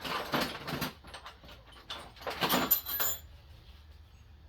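Metal hand tools clattering and clinking in two short bouts, as in rummaging through a toolbox drawer for a wrench.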